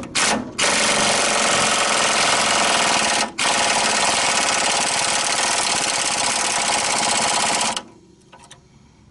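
Pneumatic impact wrench hammering as it drives a pinch bolt home to clamp the ball joint in the steering knuckle: two short blips, then a long run broken by a brief pause about three seconds in, stopping abruptly near the end.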